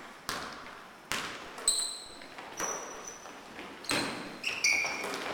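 Basketball bouncing on a hardwood gym court at irregular intervals, with short high-pitched sneaker squeaks several times as players move.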